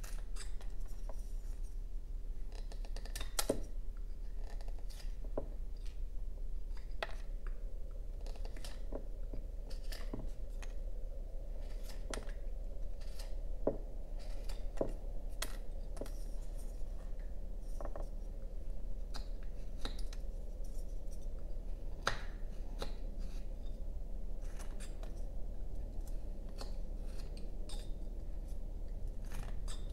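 Carving knife cutting into a basswood block by hand: short, sharp slicing clicks as chips snap off, irregular, about one every second or two, over a steady low hum.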